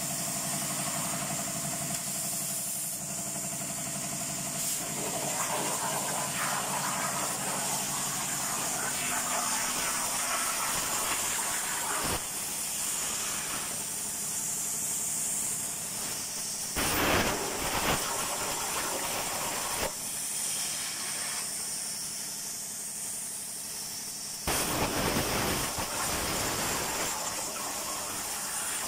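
Jasic Cut 100 plasma cutter on a CNC table, its arc hissing steadily as the torch cuts steel plate, with louder bursts of noise about 17 and 25 seconds in. A low hum underneath stops about nine seconds in.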